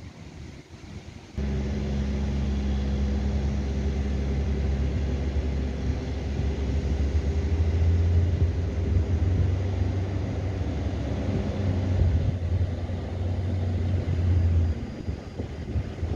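Diesel tractor engine pulling a loaded silage trailer, a steady low drone that starts suddenly about a second and a half in, grows louder in the middle and falls away near the end.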